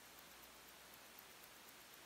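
Hamilton Khaki Field Mechanical's hand-wound movement ticking faintly and evenly, about six ticks a second, over a steady hiss.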